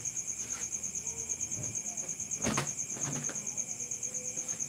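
Insects chirping in a steady, rapidly pulsing high trill, with one sharp knock about two and a half seconds in.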